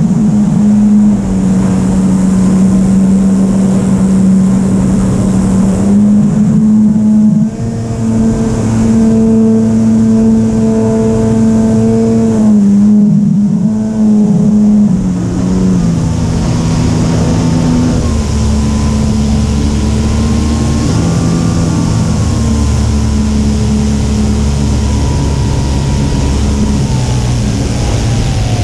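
Engine of a Sebart 2.2 RC aerobatic airplane running in flight, its pitch shifting up and down as the throttle changes, with a hiss of rushing air growing stronger in the second half.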